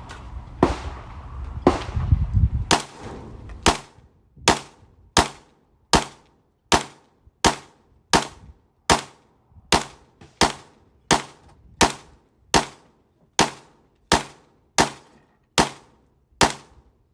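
Glock 19X 9mm pistol fired about twenty times in slow, even succession, roughly one shot every three quarters of a second. A low rumble sits under the first few shots and stops about three seconds in.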